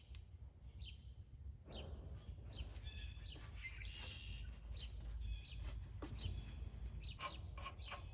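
Small birds chirping faintly in short, high calls throughout, with a few light clicks and a low steady background hum.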